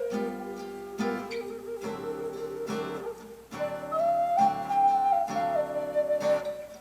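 A Native American flute plays a slow, jazzy melody over strummed acoustic guitar. The flute holds a low note, then after a brief pause about halfway through it moves up to higher, held notes.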